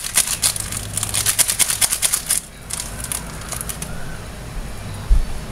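Rapid crackling and spitting, like food sizzling, from a lidded saucepan on an electric stovetop. The crackles are dense for about two and a half seconds, then thin out and fade.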